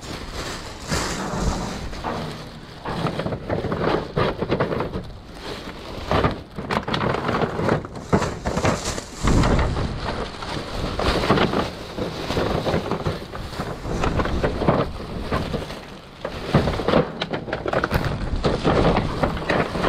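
Black plastic trash bags and clear plastic ornament containers rustling, crinkling and knocking as they are rummaged through and shifted by hand, with a heavier thump about nine seconds in.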